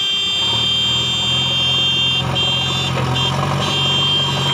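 JCB 3DX backhoe loader's diesel engine running as the backhoe arm digs, with a steady high-pitched whine over it that cuts out briefly a few times.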